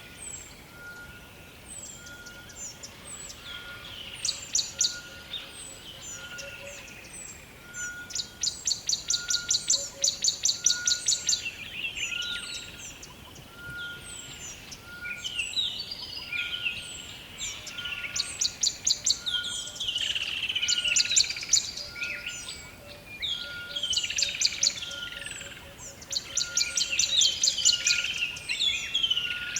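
Rainforest birds calling together: fast rattling trills come in bursts of a second or two, mixed with short downward chirps. Under them a single short note repeats about once a second.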